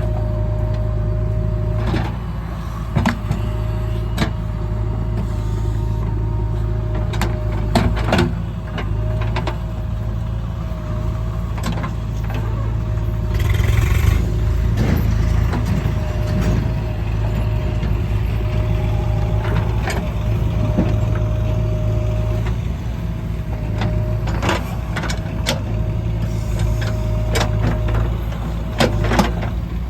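Diesel engine of a JCB 3DX backhoe loader running steadily while loading mud, with scattered clanks and knocks throughout and a short rushing noise near the middle.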